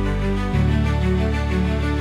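Background music: an instrumental intro with sustained chords over a bass line that shifts about half a second in.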